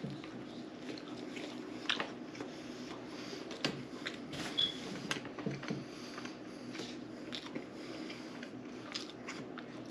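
Eating and handling a bacon cheeseburger: soft squishy noises with scattered small clicks and crackles, a few sharper clicks among them.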